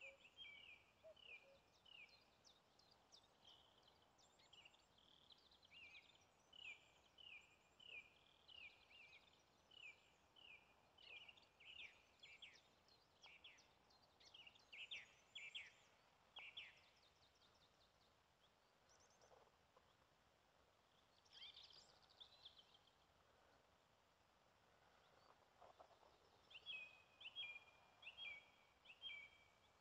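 A bird chirping: a long run of short, high, repeated notes at about two a second, faint, pausing for several seconds past the middle and starting again near the end, over a light background hiss.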